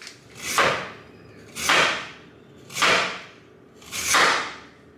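Four whoosh sound effects, each a short swish sweeping downward, evenly spaced about a second apart.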